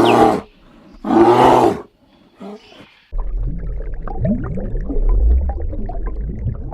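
An animal gives two loud, drawn-out calls about a second apart. About three seconds in, the sound changes abruptly to a steady low rumble with faint short sounds over it.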